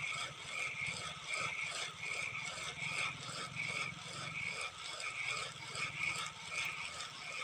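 Spinning fishing reel being cranked to retrieve the line, a rhythmic whirring scrape at about two turns a second.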